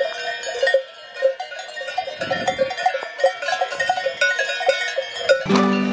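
Cowbells on grazing cattle clanking irregularly, several bells at different pitches ringing over one another. Music with guitar strumming comes in near the end.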